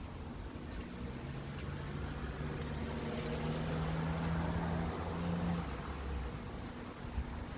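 A motor vehicle going by: a low engine hum with tyre noise that swells over a few seconds and then fades away.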